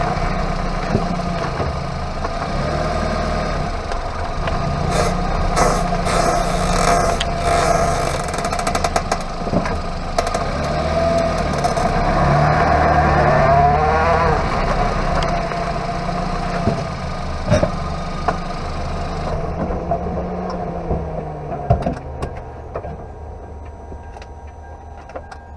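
Hyundai Avante MD front wheel hub turning on the road, heard from inside the wheel well: tyre and road noise under a drone whose pitch wavers, presented as worn hub bearing noise. It fades as the car slows to a stop near the end.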